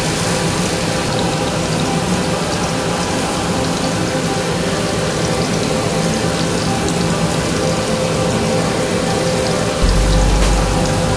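Burger patties sizzling steadily as they fry in oil in a pan, with a low rumble coming in near the end.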